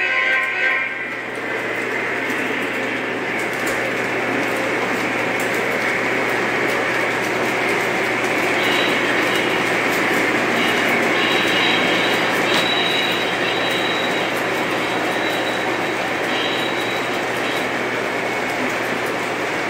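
Model trains running on the layout's track: a steady rumble of wheels and motors over the rails with a low hum. A thin high whine comes and goes in the second half.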